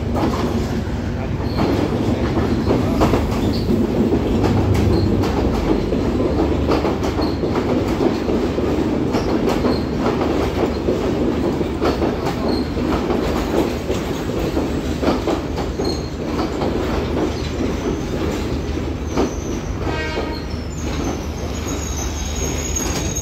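Class S13 diesel multiple unit pulling into the platform: a steady low rumble with wheels clicking over rail joints. Near the end a high thin squeal rises as it brakes to a stop.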